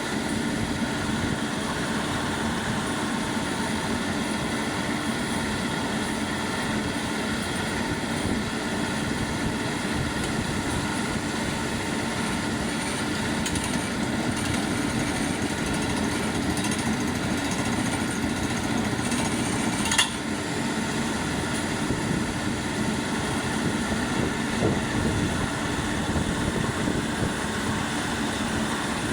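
Engines of a borehole drilling rig and its 18-bar air compressor running steadily, with one sharp knock about twenty seconds in.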